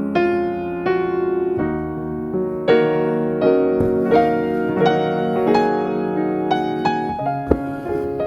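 Background piano music: a calm melody of single struck notes, one every half second or so, each ringing out.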